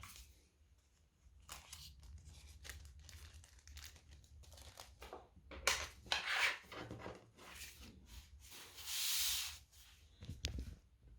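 Hands handling packaging: irregular rubbing, scraping and tearing, with a longer steady rasp about nine seconds in.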